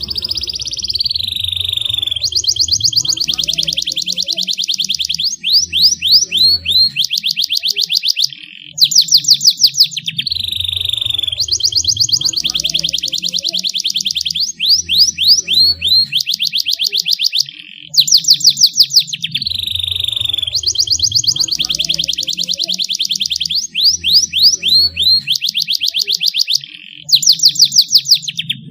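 Canary singing a long, high-pitched song of rapid trills and rolls, broken by loud bursts of fast repeated notes; the same song sequence comes round again about every nine seconds.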